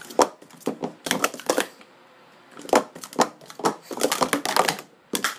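Plastic sport-stacking cups clacking against one another and the mat as they are stacked up and down at speed: two quick runs of sharp clatters, the second longer and denser, with a last click near the end.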